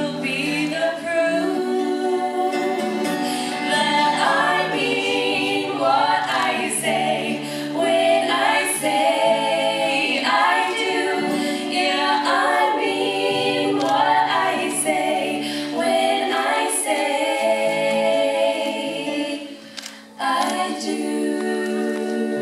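A group of young women singing in harmony, holding long notes, with an acoustic guitar strummed underneath; the sound dips briefly about twenty seconds in, then picks up again.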